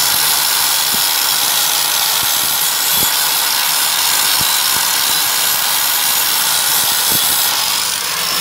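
Angle grinder running steadily with an abrasive disc pressed against a rusty steel motorcycle swing arm, grinding off rust: a continuous, high-pitched grinding hiss with a few faint knocks underneath.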